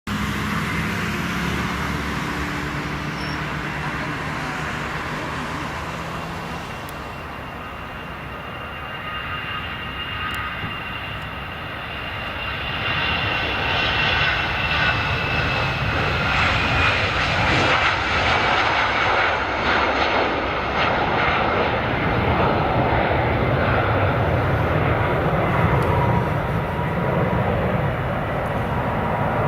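An Airbus A319's twin jet engines during takeoff: a steady engine rush and whine that grows louder about halfway through, with a high whistle slowly falling in pitch.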